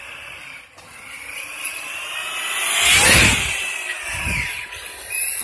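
Traxxas RC car's brushless electric motor whining as the car speeds past on wet ground, with tyre hiss. The whine climbs to its loudest about three seconds in, then drops in pitch and fades as the car goes by.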